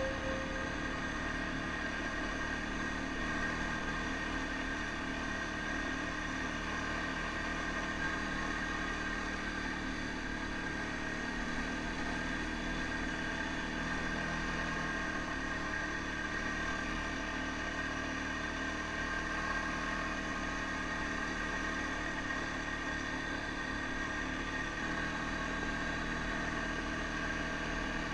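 ATV engine running steadily at an even trail speed, heard from the machine itself.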